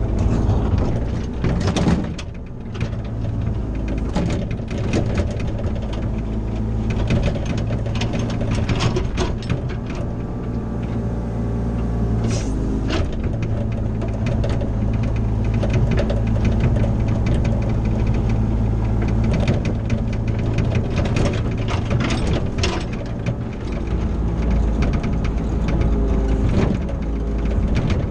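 CAT 304 mini excavator running steadily while it works dirt, with frequent short clanks and scrapes from the bucket and machine.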